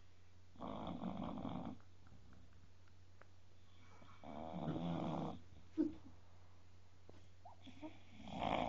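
Bulldog snoring: three snores, each about a second long, coming roughly every three and a half seconds, with a brief short sound just after the second.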